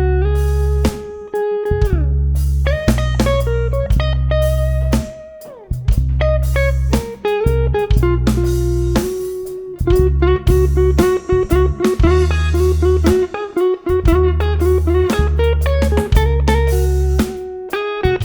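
A live band playing an instrumental passage with no singing: a guitar leads with sustained and bent notes over bass guitar and a drum kit.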